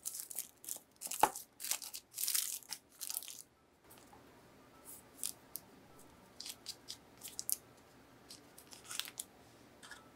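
Parchment paper crinkling and rustling in loud, crackly bursts as it is peeled open from a log of chilled cookie dough for the first three seconds or so. After a brief break, the sound turns soft: scattered small ticks and dabs as a silicone pastry brush spreads egg white over the dough.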